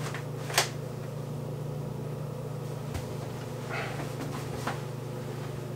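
A steady low mechanical hum, with a few faint rustles and a click as laundry is pulled out of a front-loading dryer into a plastic basket.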